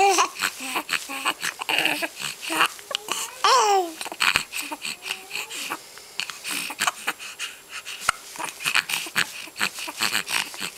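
Young baby cooing and babbling in short pitched sounds, the clearest a falling coo about a third of the way in, amid many small clicks and rustles.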